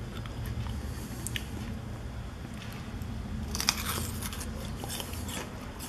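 Close-up crunching and chewing of a mouthful of crisp apple ber (Indian jujube): scattered crisp clicks, with a denser crackly burst about three and a half seconds in, over a low steady hum.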